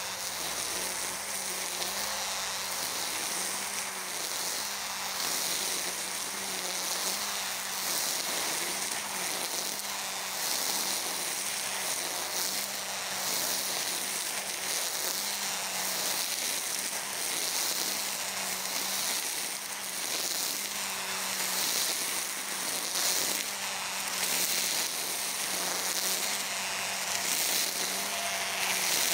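EGO Power+ battery brush cutter running at a steady speed with a constant whirring hum, its cutting head swishing through tall grass in sweeps that swell and fade about once a second.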